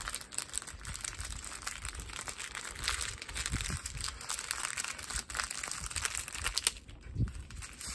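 Small clear plastic bags of diamond-painting drills crinkling and rustling as hands gather them up and press them flat.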